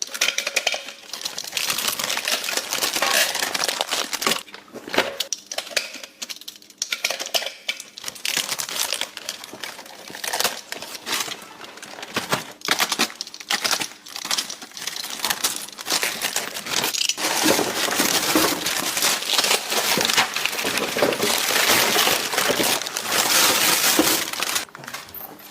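Plastic bags and packaging crinkling and rustling continuously, with small clicks and knocks, as groceries are unpacked.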